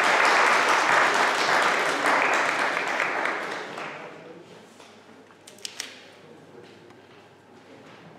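Audience applauding, with the clapping dying away after about four seconds; a couple of short sharp clicks follow in the quieter stretch.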